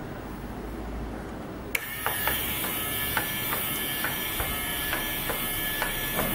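A sharp click about two seconds in, then the robot dog's small battery-powered motor running with a steady whine while its plastic leg mechanism clicks in an even rhythm, about three times a second.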